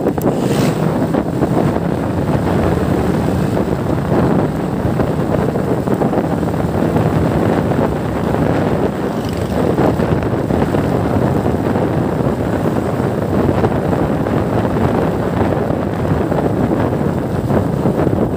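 Wind rushing over the microphone of a phone carried on a moving motorcycle, with the low hum of the engine running steadily underneath.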